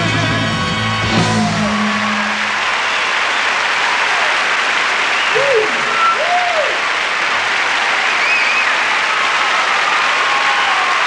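A rock-and-roll band and singers end a song on a held final chord that stops within the first two seconds, then a large audience applauds and cheers, with a few shouts and whistles rising above the clapping.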